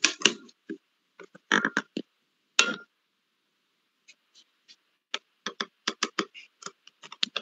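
Computer keyboard typing: short clusters of keystroke clicks with pauses between, and a quicker run of keystrokes from about five seconds in.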